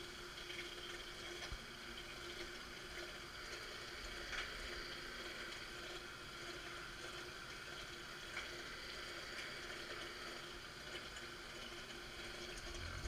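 Marunaka MG-500 straight knife grinder running its lapping cycle. The coolant pump runs with liquid flowing over the blade, and the lapping head motor gives a steady hum.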